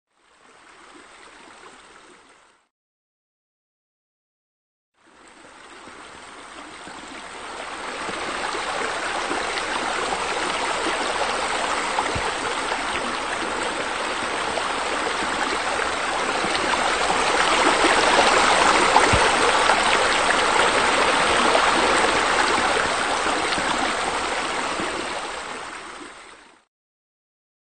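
Steady rush of running, splashing water. A faint patch comes at the start, then a short gap; the water fades in about five seconds in, grows louder toward the last third, and fades out shortly before the end.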